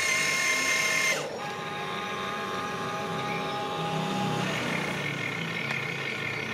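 Remote-control excavator's electric motors whining as it works. The whine is loudest for about the first second, then drops and settles to a lower steady pitch.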